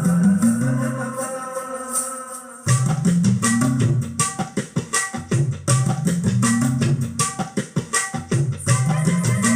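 An old Tamil film song playing through a surround amplifier board and speakers. It opens with held instrumental notes over a bass line, and about three seconds in a quick, steady percussion rhythm comes in.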